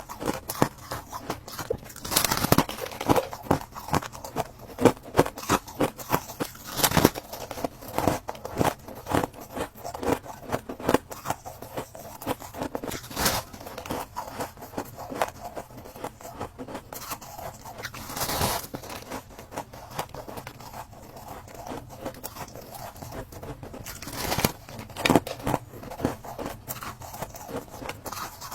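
Ice being bitten and chewed close to the microphone: a run of sharp, crisp crunches and crackles, with a louder bite every few seconds.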